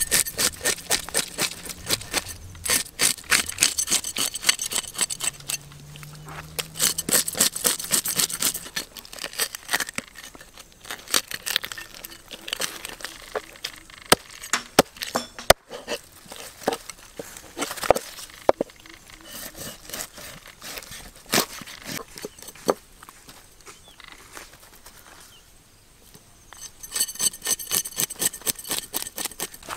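A knife scraping the scales off a whole fish in quick, repeated strokes. In the middle the strokes thin out to scattered knocks and scrapes, and near the end the fast scraping starts again.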